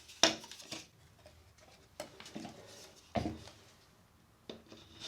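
Plumbing pipes and fittings being handled and fitted, giving a few separate clatters and knocks. The sharpest comes just after the start and a duller knock about three seconds in.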